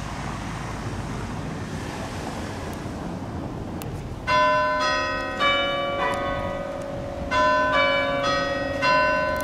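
Bells chiming: two phrases of four notes each, starting about four seconds in, each note left to ring on over a steady low outdoor hum.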